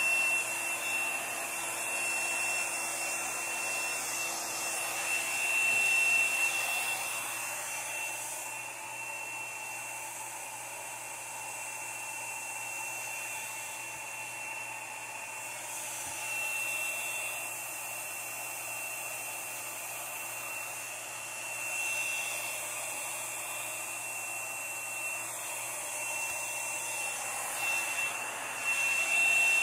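Handheld hair dryer blowing steadily, used to push wet poured acrylic paint across a canvas. Its thin high whine fades out for several seconds twice and comes back.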